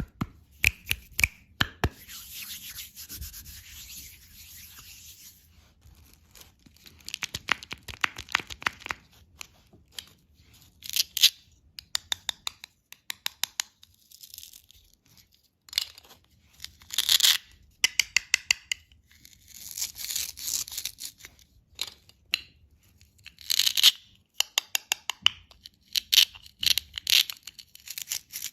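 Toy candy packaging being handled and opened by hand: rustling and scraping, with many sharp clicks and several louder crinkling stretches.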